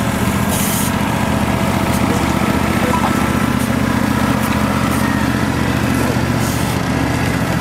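Small engine of a ride-on scale diesel locomotive running steadily as the locomotive and its riders' cars pass close by.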